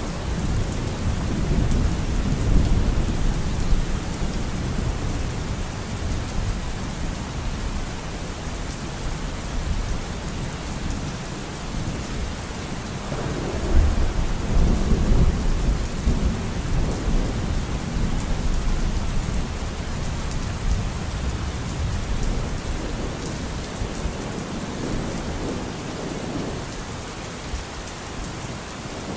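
Thunderstorm ambience: steady rain with low, rolling thunder that swells and fades, the loudest roll coming about halfway through.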